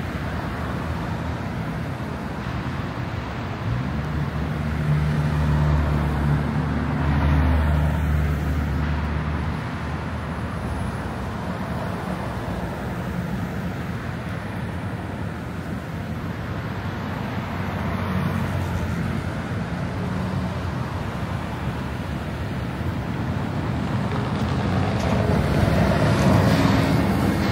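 Steady city street traffic, with engine hum swelling as vehicles pass about five seconds in and again near the end.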